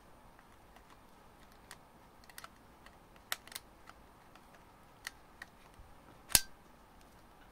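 A lithium-ion battery pack being fitted to a Canon iVIS HF R30 camcorder: a scatter of small plastic clicks and scrapes as it is slid into the slot, then one loud sharp click a little after six seconds in as it latches into place.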